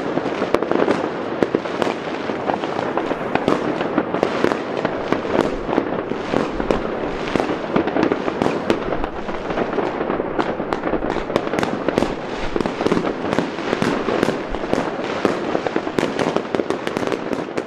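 A dense, continuous barrage of fireworks and firecrackers: many bangs and crackles overlapping, several a second, with no let-up.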